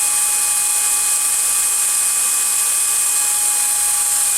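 Power drill running at a steady speed with a steady motor whine, spinning a rifle cartridge case in a deep 12mm socket for annealing, under a steady high hiss.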